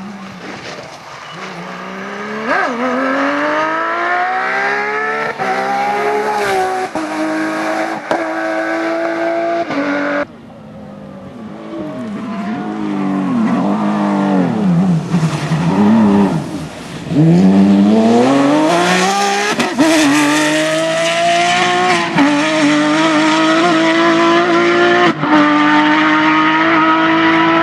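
Porsche 911 GT3 rally car's flat-six engine driven hard, its pitch climbing through the revs and dropping sharply with each quick upshift. After an abrupt break about ten seconds in, the revs swing up and down through braking and downshifts, then climb through the gears again.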